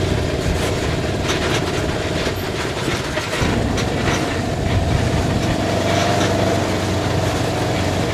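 Side-by-side utility vehicle driving slowly over a gravel ranch road, heard from inside its open cab: a steady engine drone with the body and cab rattling over the bumps.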